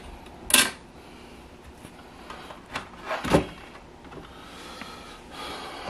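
Handling noises as wires are pulled off a zone control panel's circuit board: a sharp click about half a second in, a short scrape, and a dull thump a little after three seconds.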